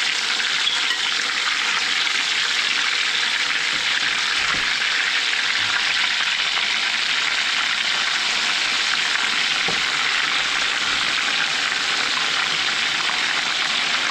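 Chicken pieces sizzling steadily in hot oil in a cast iron skillet: deep-frying at full heat just after the raw, seasoned chicken went in.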